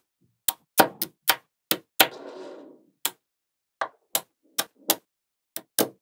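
Small magnetic balls clicking as blocks of them snap onto a structure built of magnet spheres: about a dozen sharp clicks at uneven intervals, with a short rattle after a loud click about two seconds in.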